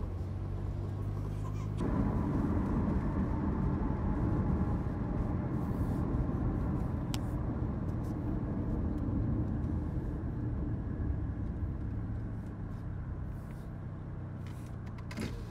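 Car engine and road noise of a car driving, swelling louder about two seconds in and easing off toward the end.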